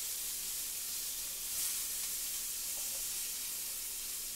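Asparagus spears sizzling steadily in a hot skillet, with a few faint clicks of a metal fork against the pan as the spears are turned and lifted.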